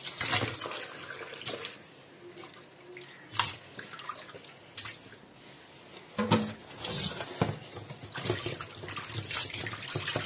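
Water splashing and sloshing as sardines are rinsed and rubbed by hand in a steel bowl of water in a stainless-steel sink. It is quieter in the middle, with a few sharp knocks.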